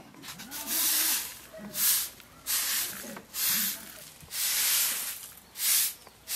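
Short dried-grass hand broom sweeping a floor: a series of about six swishing strokes, roughly one a second.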